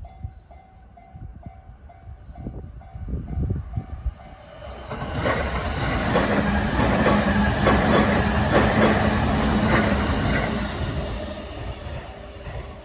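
Japanese level-crossing warning bell sounding in repeated electronic dings, about three a second, as a train approaches and runs through the crossing. The passing train is loudest from about five to eleven seconds in, with wheels clattering over the rail joints and a steady low hum, then fades away near the end.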